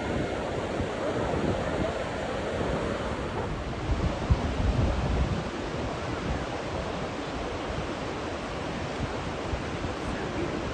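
Ocean surf breaking with steady wind across the microphone, and a stronger gust buffeting it about four to five seconds in.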